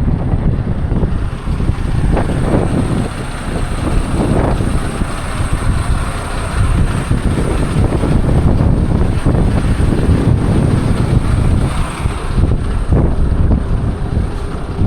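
Heavy truck on the move: the engine running and a loud, steady rumble of road and wind noise.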